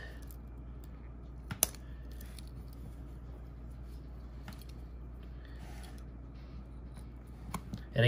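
One sharp snip about one and a half seconds in, the thin 1 mm lanyard cord being cut to length, then faint handling of the cord with a couple of soft clicks over a steady low hum.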